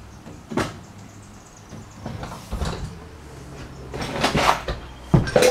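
Several scattered knocks and bumps, about five in all, the loudest a pair near the end.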